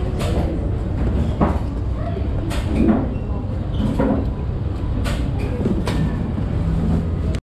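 Restaurant room noise: a steady low rumble with scattered clinks and knocks and faint background voices. It cuts off suddenly near the end.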